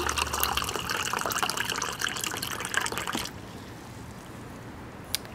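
Water running from a drink dispenser's tap into a plastic cup, filling it, and cutting off about three seconds in.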